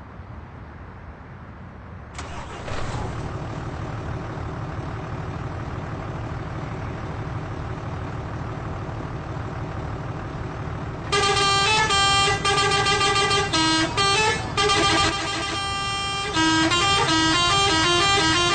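Bus engine running with a steady low rumble that grows louder about two seconds in; from about eleven seconds in, an Indonesian 'telolet' multi-tone bus horn plays a quick tune of stepping notes over it.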